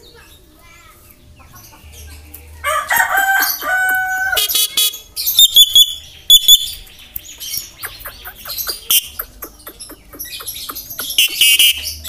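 Caged Javan myna calling: a run of held whistled notes, then loud high chirps, a quick series of clicks, and a harsh squawk near the end.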